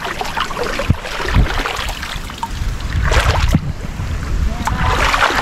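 Shallow, muddy water sloshing and splashing as people wade through it, with several sharper splashes over a low rumble.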